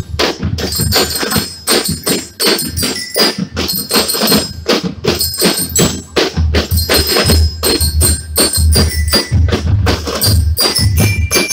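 School drum and lyre corps playing a marching piece: fast, dense snare drum strokes over a heavy bass drum pattern, with bell lyres ringing out high metallic notes above the drums.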